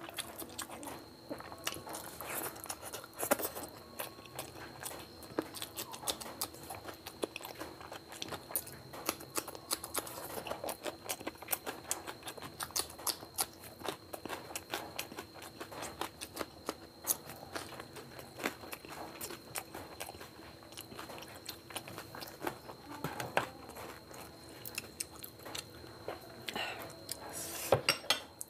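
Close-miked eating with the hands: chewing and mouth smacks, with wet clicks from fingers working curry and rice, in a dense stream of small clicks. A faint steady high tone sits underneath.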